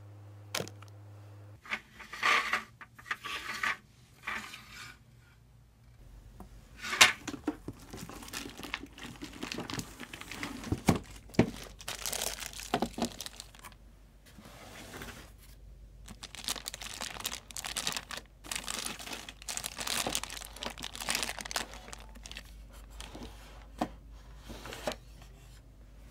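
Clear plastic bag around a new thermal label printer crinkling and rustling as it is handled during unboxing, in irregular bursts with a few sharper crackles.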